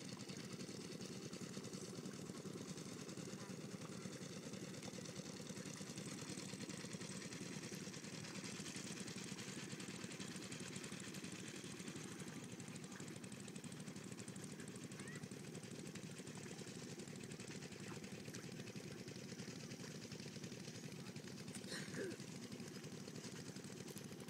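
A small engine running steadily with a rapid, even chugging.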